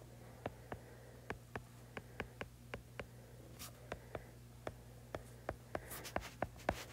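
A stylus tapping and ticking on an iPad's glass screen while an equation is handwritten: irregular sharp ticks, a few a second, over a faint steady hum.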